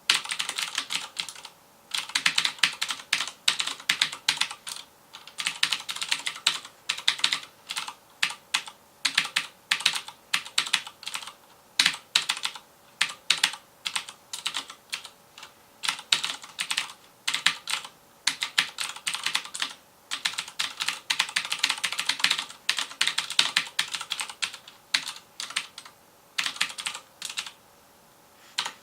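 Fast typing on a FILCO Majestouch Convertible 2 mechanical keyboard with Cherry MX Blue switches: dense runs of sharp, clicky keystrokes broken by brief pauses.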